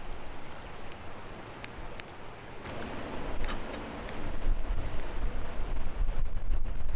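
Outdoor wind buffeting the microphone as a low rumble that gets louder about halfway through. A few sharp crackles from the wood campfire come through in the first half.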